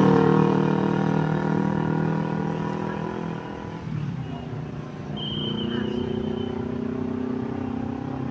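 A passing road vehicle's engine running and fading away over the first few seconds, then another vehicle's engine coming up again about five seconds in.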